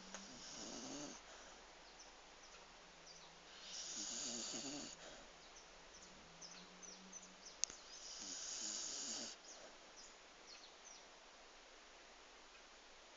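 A sleeping pet snoring: three drawn-out snores about four seconds apart, with a single faint sharp click between the second and third.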